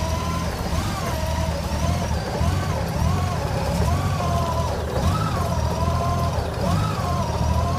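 Honda GL1800 Gold Wing's flat-six engine idling with a steady low rumble. A high, wavering tone swoops up and down over it throughout, several times a second.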